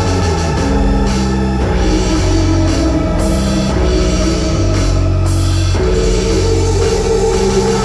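Instrumental rock band jam: a drum kit playing under sustained low notes that shift in pitch every second or so.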